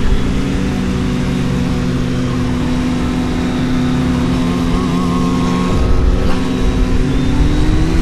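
Kawasaki Z900's inline-four engine running at steady revs under way, then revving up with a rising pitch near the end.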